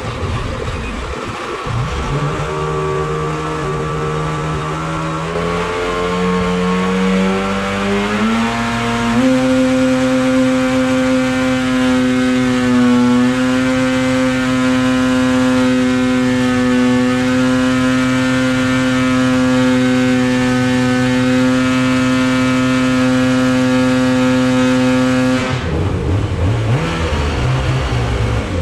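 Rotax 800 E-TEC two-stroke twin snowmobile engine with a D&D Y-pipe, run on a dyno. The revs climb in steps for the first several seconds, then hold steady at full load near 7,700 rpm, making about 147 hp, for roughly sixteen seconds. Near the end the throttle closes and the revs fall away.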